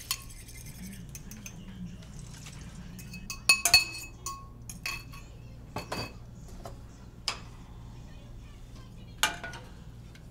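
Cooking utensil clinking against a bowl and a pot in scattered sharp knocks with a short ring, the loudest a quick cluster about three and a half seconds in, over a low steady hum.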